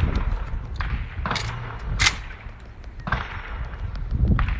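Low rumbling wind noise on the microphone, with several short sharp cracks and knocks over it; the loudest crack comes about two seconds in.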